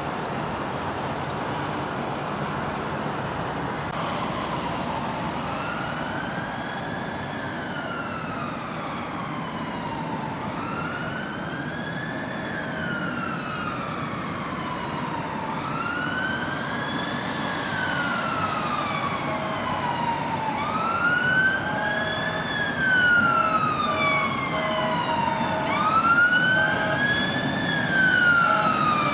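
Emergency-vehicle siren on a slow wail, rising and falling about every five seconds, coming in faintly a few seconds in and growing louder as the vehicle approaches, over a steady hiss of road traffic. A short repeated beeping tone joins it in the second half.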